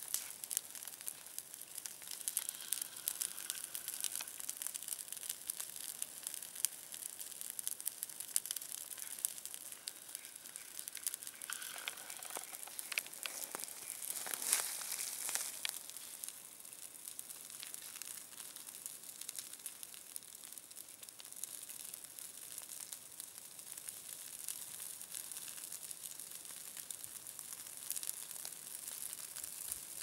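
Low ground fire of a back-burn crackling through dry grass and forest litter: a dense, steady stream of small snaps and pops, with a few louder rustling crackles about halfway through.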